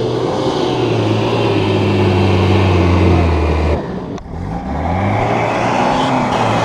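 Off-road 4x4 SUV's engine pulling hard up a slope, the throttle dropping off sharply about four seconds in as it crests, then revving back up and running on.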